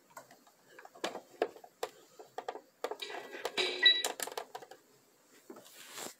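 Scattered clicks and rustling, with a louder stretch of rustling about three seconds in.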